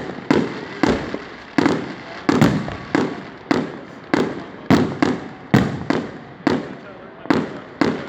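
Aerial fireworks shells bursting in quick succession: about a dozen sharp booms, one every half second to a second, each with a long echoing tail.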